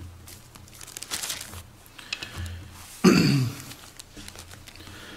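Bible pages being turned and rustling, a few short flurries of paper noise. About three seconds in comes one short, loud burst, the loudest sound here, that falls in pitch.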